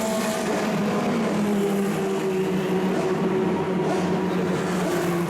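Historic 1960s cigar-shaped Formula 2/Formula 3 race car engines running at speed: a steady engine note that slowly falls in pitch, then rises again near the end.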